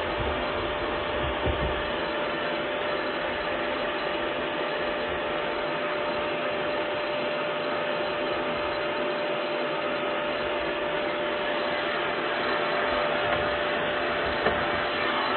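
Vacuum cleaner running steadily, a constant rushing motor noise with a steady whine.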